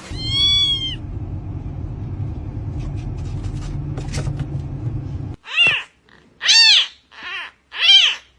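Domestic cat meowing: one high meow at the start, then a steady low rumble that cuts off suddenly, followed by four short meows in quick succession.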